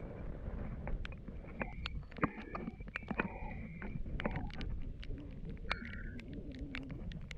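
Wind rumbling on the microphone, with many scattered sharp clicks and a few short high squeaks.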